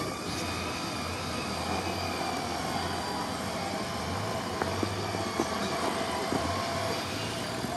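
Engine of a lifted off-road SUV working as it climbs a steep snowy mound, its level swelling and easing, with a couple of faint knocks about halfway through.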